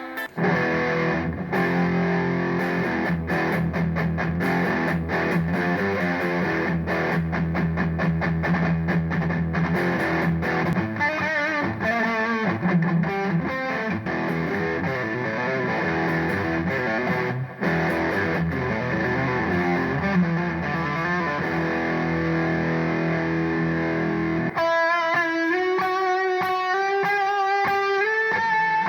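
Music with distorted electric guitar, dense and steady, changing near the end to a sparser, cleaner guitar line of single notes.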